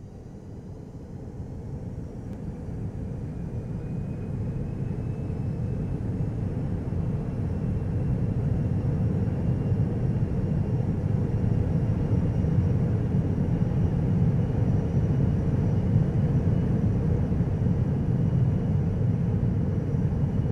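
Airliner cabin noise in flight: a steady low rumble of engines and airflow with faint high whining tones, growing louder over the first several seconds and then holding steady.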